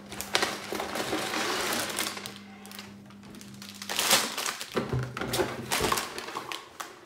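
Cardboard box flaps rustling and sliding, then plastic bags of LEGO pieces crinkling and the loose bricks inside rattling as the bags are pulled out of the box, with a soft thump about five seconds in.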